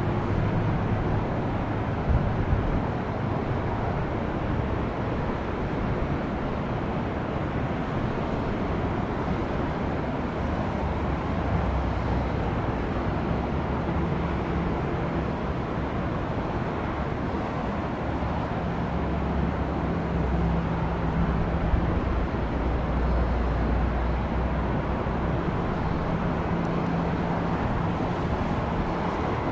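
Jet aircraft engines making a steady rumble, with a deeper low hum that swells from about a third of the way in until past the middle.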